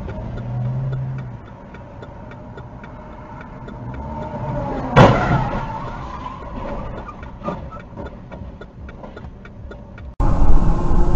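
Low vehicle hum inside a car's cabin, then about five seconds in a sudden loud bang with a ringing, falling scrape that fades over about a second as a semi-trailer crosses close in front, typical of the trailer striking the car.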